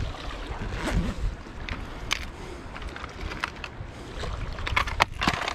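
Shallow seawater lapping and sloshing around a wading angler, with a low rumble of wind on the microphone. From about two seconds in come scattered small clicks and taps of a plastic tackle box and lure being handled, thickest near the end.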